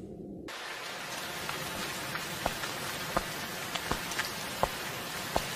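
Rain falling steadily, an even hiss that starts suddenly about half a second in, with scattered louder drops ticking.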